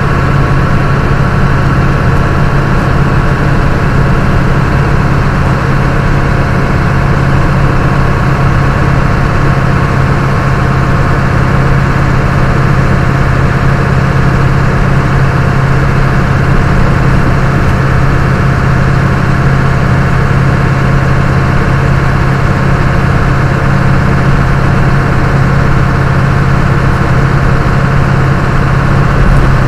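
Truck engine and road noise inside the cab at a steady highway cruise of about 90 km/h: a constant drone with a strong, steady deep hum that does not change.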